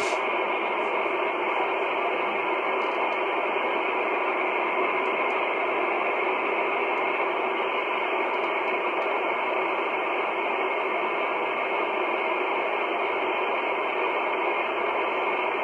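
Kenwood R-1000 shortwave communications receiver hissing with steady static on an open channel, no transmission coming through. The hiss is even and unchanging, narrowed to the voice band by the receiver's filter.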